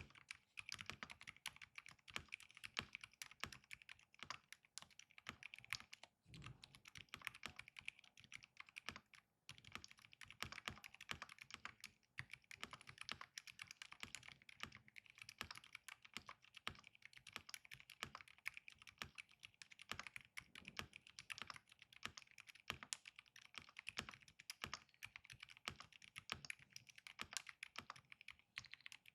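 Continuous fast typing on a Keychron V6 Ultra mechanical keyboard with pre-lubed Keychron Silent Red linear switches and double-shot PBT keycaps: soft, muted keystrokes, with brief pauses about six, nine and twelve seconds in.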